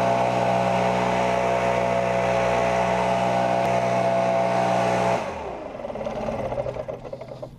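Backpack leaf blower running steadily with a rushing blast of air. About five seconds in it drops sharply to a much quieter, lower run.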